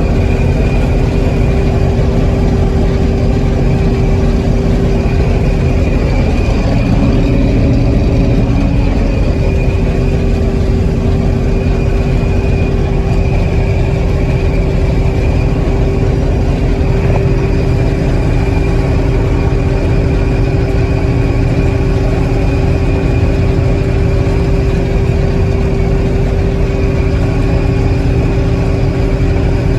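Combine harvester running steadily while cutting soybeans: a loud, even engine and machinery drone with a steady whine, briefly shifting in pitch about seven seconds in.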